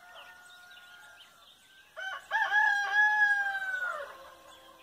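A rooster crowing once, about two seconds in: a few short rising notes, then a long held note that falls away at the end. Small birds chirp faintly behind it.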